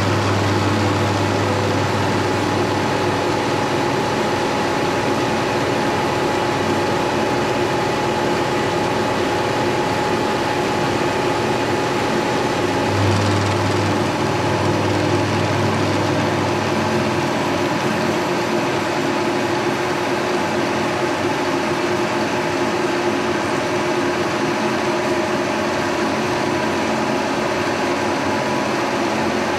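A 1943 Brown & Sharpe No. 2 Plain milling machine running under load, its horizontally swung head cutting the side of an aluminum block: a steady machine hum with several held tones over continuous cutting noise.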